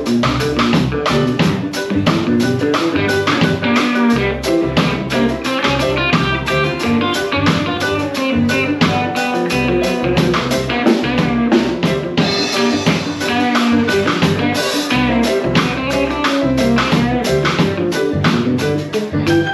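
Live rock band playing: electric guitar and bass over a drum kit keeping a steady beat.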